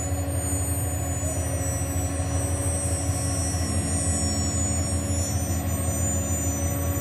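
Heavy diesel engines of an asphalt paver and the tipper truck feeding it running steadily, a low drone with a constant hum. About three and a half seconds in a second low tone joins.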